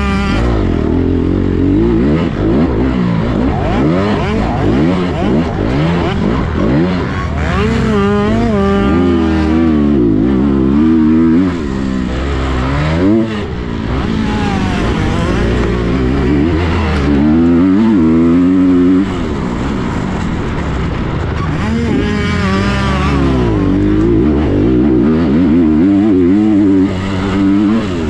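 Motocross dirt bike engine heard on board at race pace, revving up and falling back again and again through corners and straights, with a few brief dips where the throttle closes.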